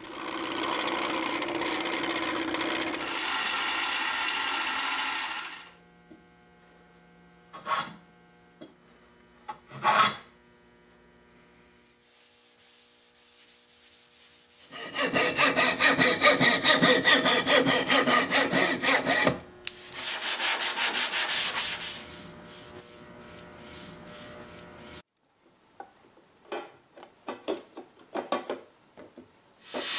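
Hand tools working wood in several short spells: a steady rubbing stretch at the start, two brief strokes, then a long run of fast back-and-forth strokes in the middle, and a few light taps and clicks near the end.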